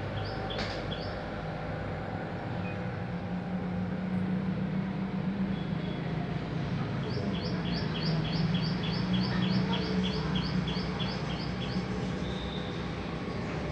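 A bird chirping a quick run of repeated high notes, about four a second, for several seconds in the second half, with a few shorter chirps near the start, over a steady low mechanical hum.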